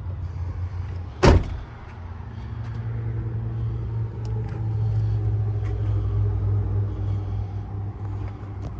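A truck door slams shut with one loud thump about a second in, over the steady low hum of the Ford F550's V10 gas engine idling.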